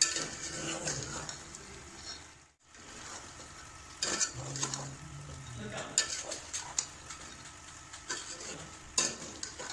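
Chicken frying in a thick masala in a pot, sizzling steadily while a wooden spatula stirs it, with a few sharp clacks of the spatula against the pot. The sound breaks off briefly about two and a half seconds in.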